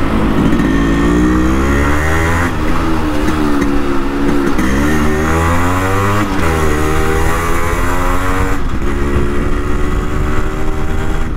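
Yamaha RX 100's two-stroke single-cylinder engine pulling through the gears on the move. The pitch climbs, drops at each upshift and climbs again several times, then holds steady at cruising speed near the end. This is the typical RX two-stroke sound, which a four-stroke engine cannot make.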